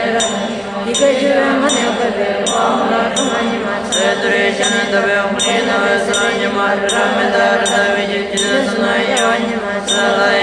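Tibetan Buddhist mantra chanting with musical accompaniment, and a short high metallic strike keeping a steady beat about every three-quarters of a second.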